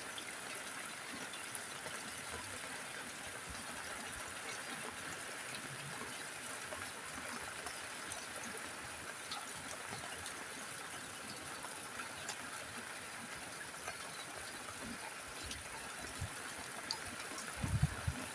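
Steady rain falling on a roof, an even patter with a few low thumps near the end.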